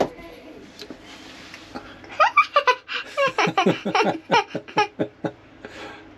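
A child laughing: a run of quick, high-pitched giggles that starts about two seconds in and lasts about three seconds, each giggle falling in pitch.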